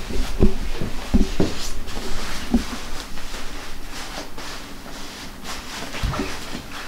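Thick padded envelope-style sleeping bag being folded and pressed flat by hand: its fabric shell rustles and swishes, with a run of soft irregular thumps, most of them in the first few seconds.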